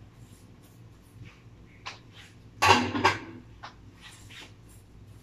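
A spatula knocking and scraping against a wok during stir-frying, with two louder clanks a little under three seconds in and a few lighter taps around them.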